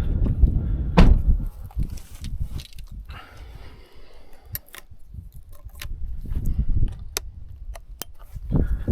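Rustling and handling noise with a loud knock about a second in and several sharp clicks later.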